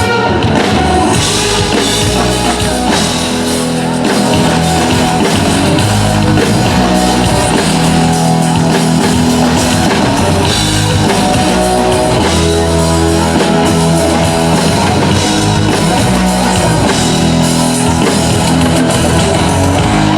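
Live band playing an upbeat rock-pop song through a stage PA, with drum kit and electric guitar; no clear vocal.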